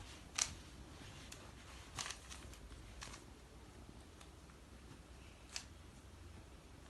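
Faint, irregular plastic clicks of a Rubik's cube being twisted, over a low steady hum.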